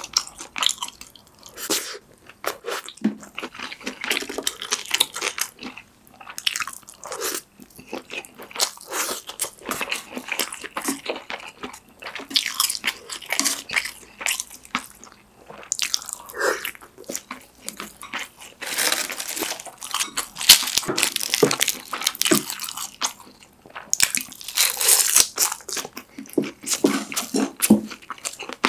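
Close-miked eating sounds: a person chewing a mouthful of rice, Spam and pork kimchi stew, with crisp crunching and wet mouth clicks coming thick and fast.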